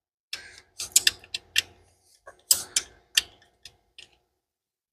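Irregular sharp clicks and light metallic taps, about nine over four seconds, from hand work threading a fuel pressure gauge onto its fitting.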